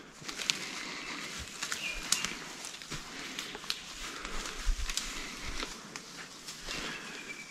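Footsteps moving through forest undergrowth: scattered snaps and rustles of leaf litter and twigs underfoot. A short bird call comes about two seconds in and another near the end.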